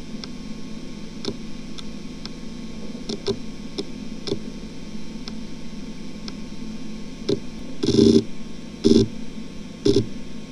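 Western Digital XE WD3001BKHG 10,000 rpm 2.5-inch enterprise hard drive spinning with a steady whir and hum during an HD Tune read benchmark, its heads ticking faintly now and then. From about seven seconds in, louder bursts of head seeking come about once a second as the transfer rate drops.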